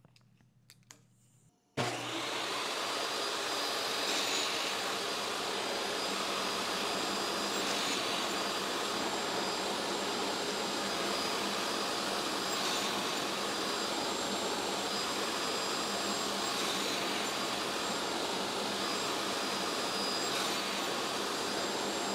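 Table saw switched on about two seconds in and running steadily with a high whine, cutting diamond-shaped pieces from a narrow wood strip at 30 degrees on a sled. Five cuts are heard as the noise briefly rises, about every four seconds.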